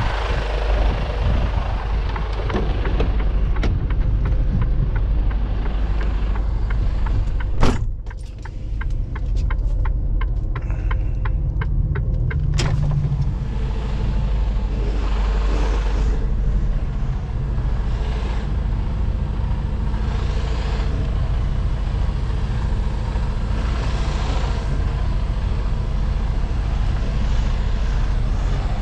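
A truck's diesel engine running. About eight seconds in, a door slams and the engine drops to a muffled hum with a run of soft, evenly spaced ticks. After a sharp click a few seconds later, the engine pulls steadily as the truck moves off.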